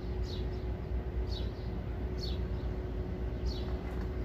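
A bird repeating a short, high, falling call about once a second, over a low steady rumble with a faint hum.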